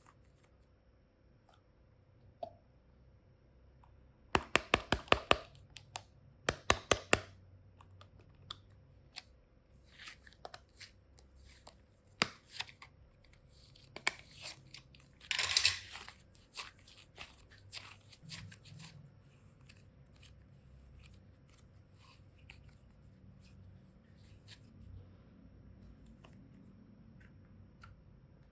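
Hands handling small plastic toy boxes and packaging: two quick runs of sharp clicks, then scattered taps and clicks, and a short crinkly rustle about halfway through.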